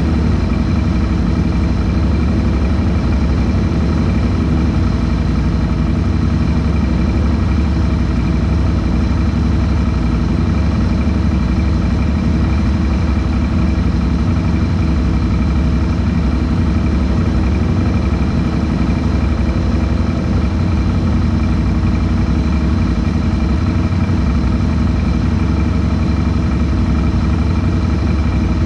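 ATV engine idling steadily close to the microphone, an even low hum with no revs.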